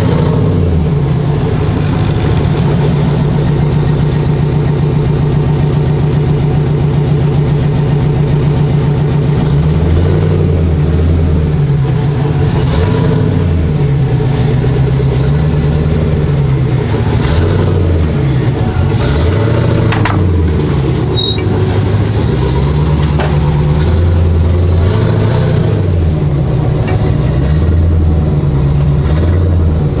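Supercharged V8 truck engine running steadily for about the first ten seconds, then revved up and down again and again.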